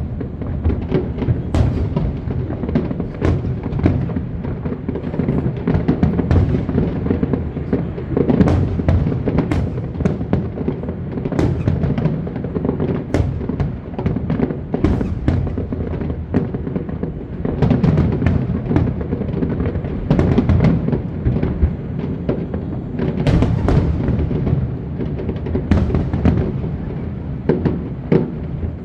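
A fireworks display: aerial shells bursting in quick, continuous succession, with many sharp bangs over a dense rumble, and music playing along.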